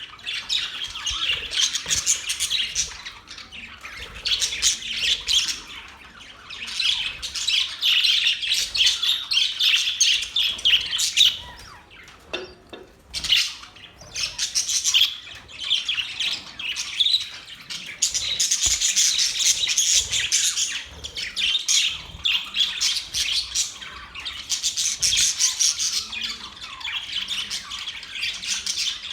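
Budgerigars chattering and chirping in rapid, overlapping bouts of high-pitched calls, with a brief lull about twelve seconds in.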